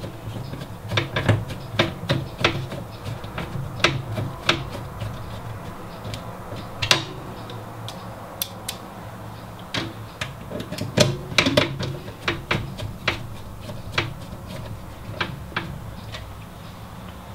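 Irregular small clicks, taps and knocks of thumb screws and PCI slot brackets being fitted back into a computer case to hold the graphics card in place, over a steady low hum.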